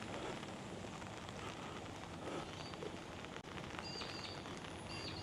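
Steady hiss of monsoon rain falling, with a few short high bird chirps in the second half.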